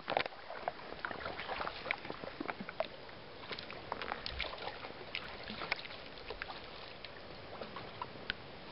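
Small ripples lapping at the water's edge, a steady light wash with irregular little plinks and splashes.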